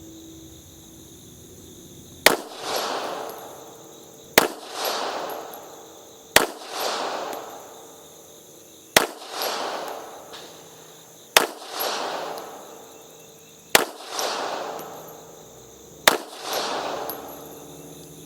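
P83 pistol firing 9mm Makarov, seven single aimed shots about every two to two and a half seconds. Each sharp report is followed by a rolling echo that fades over about a second and a half.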